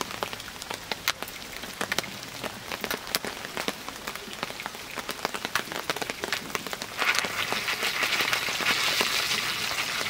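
Foil popcorn pan over a wood campfire: butter bubbling in the pan, with scattered sharp pops and crackles making a rain-like patter. About seven seconds in it turns into a louder, denser hiss.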